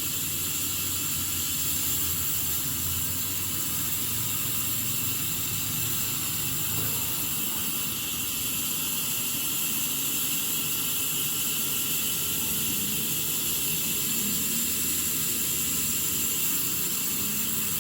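Sawmill machinery running steadily: an even, unbroken mechanical noise with a strong high hiss over a low rumble.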